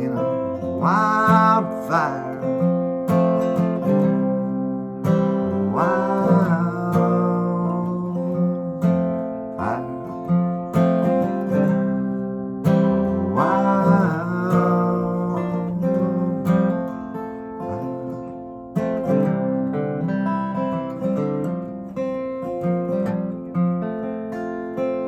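Acoustic guitar playing an instrumental passage of a folk song, strummed chords with a higher melody line whose notes slide upward a few times.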